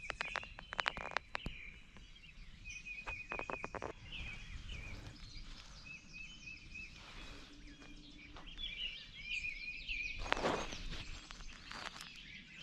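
Songbirds chirping continuously in spring woods. Clusters of sharp clicks and knocks come near the start and again about three seconds in, and a louder rustling rush comes about ten seconds in.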